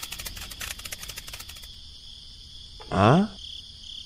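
Cartoon sound effects over a steady high chirring background: rapid clicking, about ten clicks a second, that stops before two seconds in, then about three seconds in a loud descending whistle-like glide sweeping from high to low.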